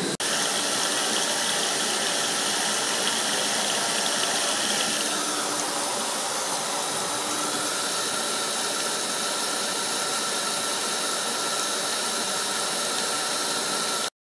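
CNC stone milling machine cutting Yorkstone under a water coolant spray: a steady hissing grind from the spinning cutter and water, with a faint high whine. It cuts off suddenly near the end.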